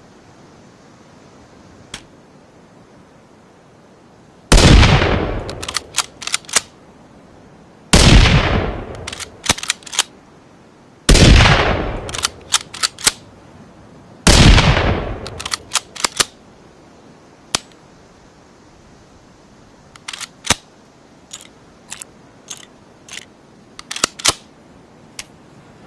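Rifle gunshot sound effect blending a Ruger American centerfire rifle with a rimfire rifle: four loud shots about three seconds apart, each with a long fading tail and a few sharp clicks after it. Near the end comes a run of lighter, quick clicks.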